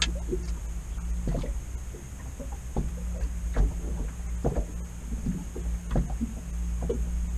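Sounds of a small inflatable PVC boat on the water: a steady low rumble with scattered light knocks and splashes against the hull.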